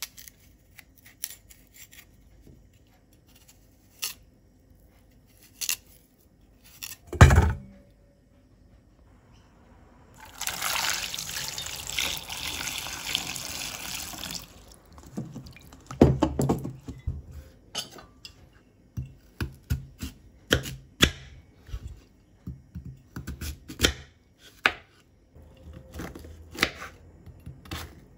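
Knife scraping and clicking on a taro being peeled, with one heavy thump about seven seconds in. About ten seconds in, tap water runs into a stainless steel bowl for about four seconds. After that, a knife knocks through the tuber onto a wooden chopping board, irregularly, many times.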